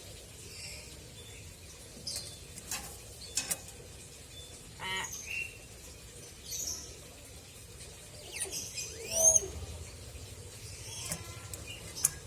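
Pet hill myna making scattered sharp clicks, short chirps and whistles, the loudest a swooping whistle about nine seconds in.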